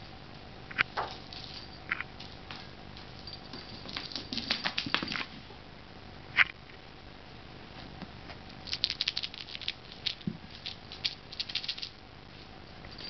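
A kitten's paws pattering and clicking as it scampers on a hardwood floor. The light clicks come singly at first, then in quick runs about four seconds in and again from about eight to twelve seconds.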